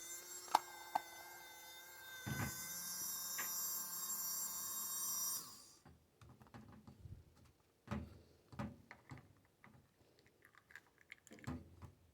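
Small electric motor of a battery-operated mini washing machine running with a steady whine, two sharp clicks near the start; the motor stops about six seconds in, followed by scattered light knocks and clicks.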